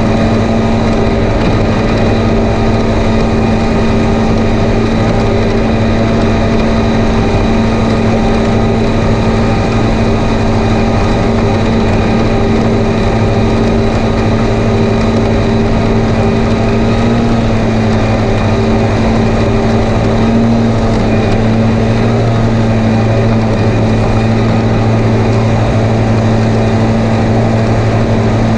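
Tractor engine running at a steady speed under load, driving front and rear mowers through the PTO: a constant drone with no change in pitch. The pull is no heavier than with the front mower alone.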